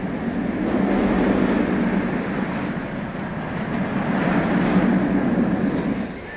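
Steel roller coaster train rumbling along its track, swelling twice and cutting off just before the end.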